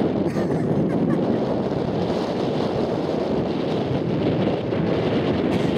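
Steady wind buffeting the microphone.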